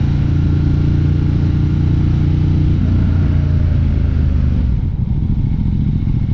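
Ducati Diavel 1260 S's L-twin engine running at steady low revs, a deep even exhaust note that eases off slightly near the end.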